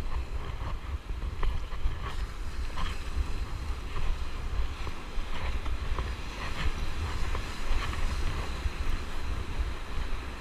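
Wind buffeting the microphone in a steady low rumble, over the wash of surf breaking on the beach, with faint scattered clicks.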